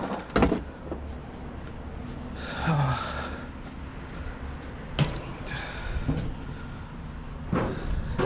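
Scrap items from a hard-rubbish pile being handled: sharp knocks and clanks, two close together at the start, one about five seconds in and another near the end, with a short creak about three seconds in.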